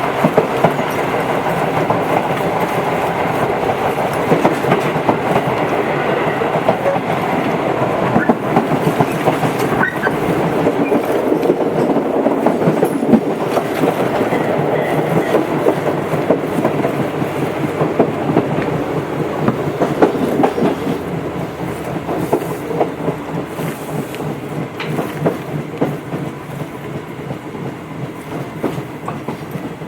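Tobu 8000 series electric train running on the rails, heard inside the car, with wheels clicking over rail joints. The noise eases over the last third as the train slows toward a station stop.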